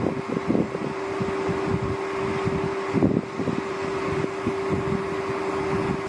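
Wind rumbling and buffeting on the microphone, over a steady low hum that cuts off at the end.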